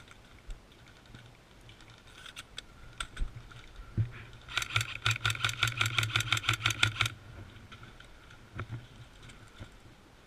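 Airsoft electric gun firing a full-auto burst of about two and a half seconds: a motor whir under rapid, evenly spaced shots, about seven a second. A few single cracks come before and after the burst.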